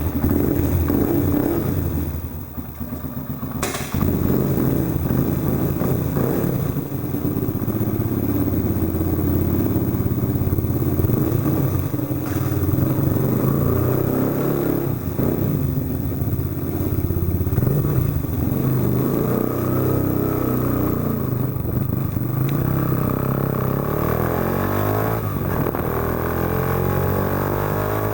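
Yamaha Factor 125 motorcycle's single-cylinder four-stroke engine running through a Roncar aluminium RS aftermarket exhaust while riding, its note rising and falling with the throttle. The sound drops back briefly about two seconds in, then picks up again.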